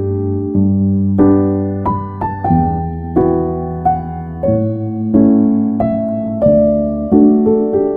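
Background music: a piano playing slow, gentle chords, a new chord struck every second or so and left to ring.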